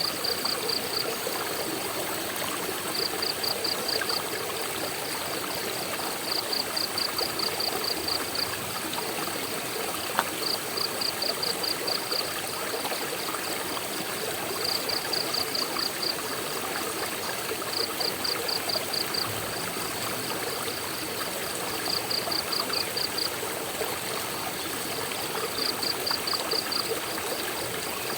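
Steady rush of a flowing stream or waterfall. Over it, short runs of about eight high, rapid pulsed chirps recur every few seconds, and there is a single click about ten seconds in.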